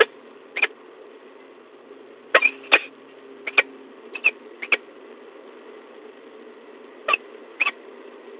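Sounds inside a peregrine falcon nest box: about a dozen short, sharp clicks and scratches at irregular intervals, bunched in the middle, over a steady low hum from the camera's microphone.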